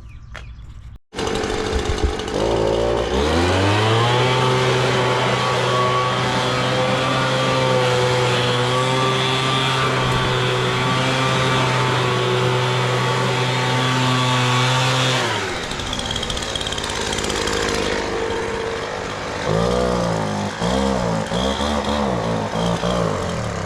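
Gas leaf blower's small engine revving up about two seconds in and running steady at full throttle, then dropping back about fifteen seconds in, with revs rising and falling unevenly near the end.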